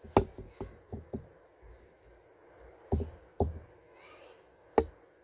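Several short knocks and thuds as a paint-covered canvas is tilted and shifted on a glass cup: a quick run of about five in the first second, two more around three seconds in, and a last one near the end.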